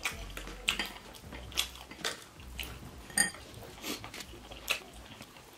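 Table-eating sounds: scattered light clicks and clinks of bamboo skewers and a spoon against ceramic bowls and a wooden board, one clink ringing a little past halfway, with quiet chewing between.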